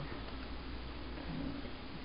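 Quiet steady low hum, with a short faint murmur a little past halfway through.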